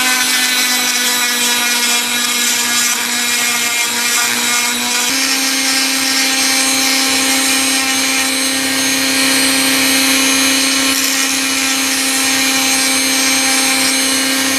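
Small high-speed rotary power tool running continuously with a steady whine, its pitch stepping up slightly about five seconds in, as it works away material in the camera repair.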